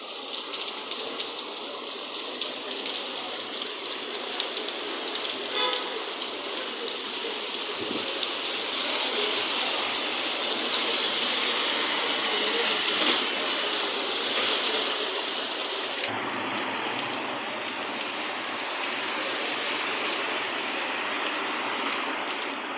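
Heavy rain pouring down, a steady rushing hiss.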